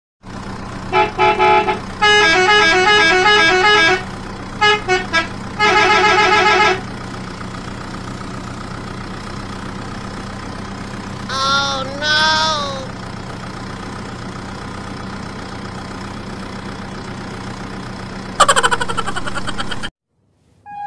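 Steady truck engine drone with repeated loud truck horn blasts, some played as quick multi-note tunes, in the first seven seconds; two short wavering calls come about halfway and a pulsing horn blast near the end. The sound cuts off abruptly near the end.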